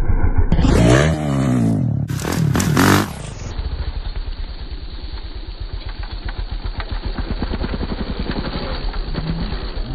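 Dirt bike engine revving hard in two rising-and-falling bursts. Then a dirt bike running at low revs with a fast, even beat of firing pulses as it slides through loose dirt.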